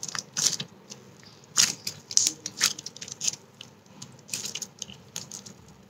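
Slime with foam balls in it squished and stretched by hand, giving irregular small clicks and crackles.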